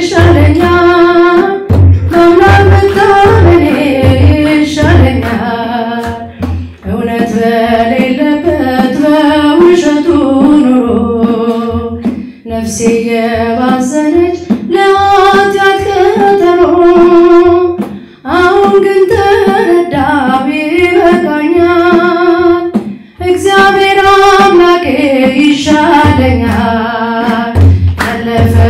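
A woman sings an Ethiopian Orthodox hymn (mezmur) into a handheld microphone in long, held, gliding phrases with short breath breaks, over a low, pulsing beat.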